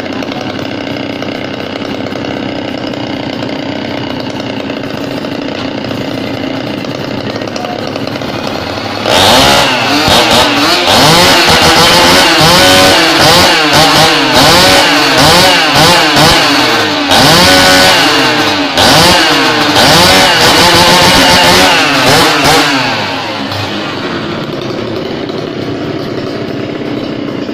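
Two-stroke engines of a Kawasaki Ninja Super Kips motorcycle and a Maestro CS6500G petrol chainsaw idling together. About nine seconds in, both are revved hard in quick, repeated rising and falling blips for some fourteen seconds, then drop back to a steady idle.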